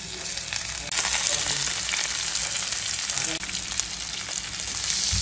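Semolina-coated fish sizzling as they are laid into hot oil in a non-stick frying pan. The sizzle gets suddenly louder about a second in.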